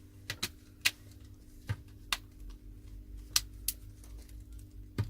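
Smartphone parts being handled and fitted back together: about eight sharp, irregular clicks and taps, over a low steady hum.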